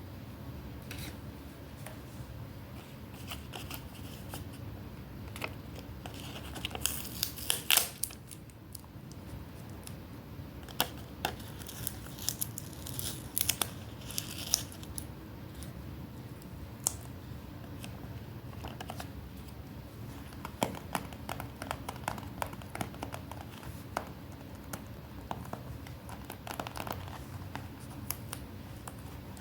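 Paper being handled and unwrapped close up: crinkling and tearing with scattered sharp clicks, the loudest cluster about seven to eight seconds in.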